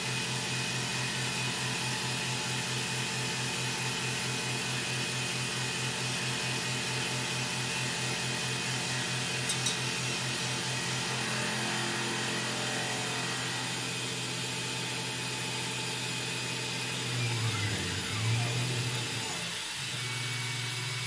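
Tormach 1100 CNC mill's spindle running a Tormach Superfly face mill at 2500 rpm across a metal plate on a light facing pass, a steady machining hum with a pulsing low drone. Near the end the pitch falls and rises as the spindle stops and restarts for the next tool.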